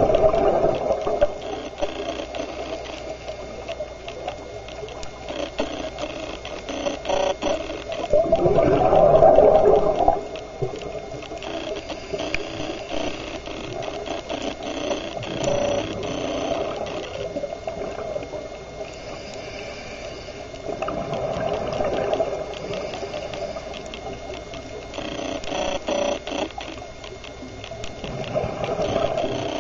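Underwater sound of a scuba diver breathing: rushing bursts of exhaled regulator bubbles every five or six seconds, the loudest about nine seconds in, over a steady fine crackling.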